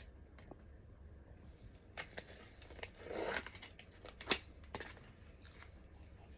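Plastic film crinkling and tearing as the lid is peeled off an instant cooked-rice tub. A wooden spoon then clicks sharply against the tub several times while rice is scooped; the loudest click comes about four seconds in.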